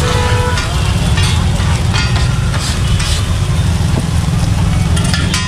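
Steady low rumble of street traffic and engines, with scattered metallic scrapes of the cook working rice across a flat steel griddle. A brief pitched tone sounds right at the start.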